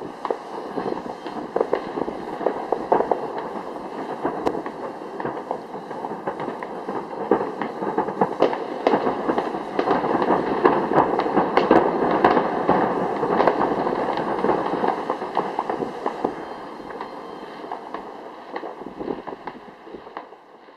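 Fireworks display: a continuous barrage of bangs and crackles, thickest about halfway through, then thinning out and fading away near the end.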